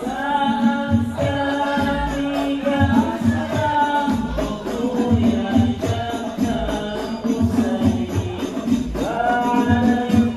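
A male singer sings a sholawat melody into a microphone over an Al Banjari ensemble's frame drums (rebana), which beat a steady rhythm beneath the voice.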